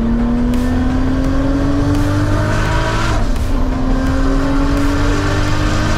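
Turbocharged Toyota Supra MkIV engine accelerating hard on a race track. Its pitch climbs, drops at an upshift about three seconds in, then climbs again.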